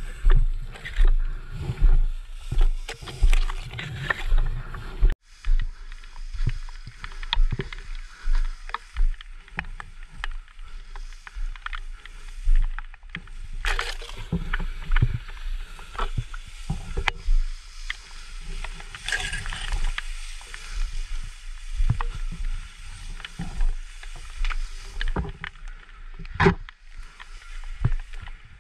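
Tall grass rustling and brushing against a body-worn camera as the wearer moves through it, with footsteps and handling thumps that come regularly, about every half second, for the first few seconds, then irregularly. A single sharp knock near the end.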